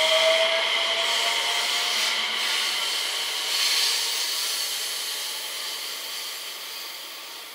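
JR West 227 series three-car electric train running away along the track, its rolling noise fading steadily, with a few thin high tones that die away in the first couple of seconds.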